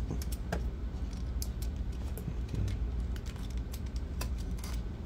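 Irregular light clicks and crinkles from hands working at the tape and casing of an e-bike battery pack, over a steady low hum.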